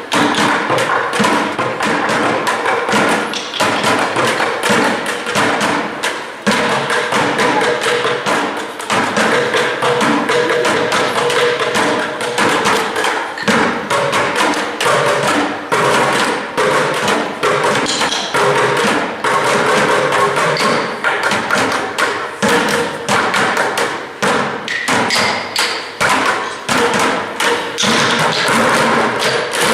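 Music playing with a dense run of sharp percussive taps and thumps over sustained tones.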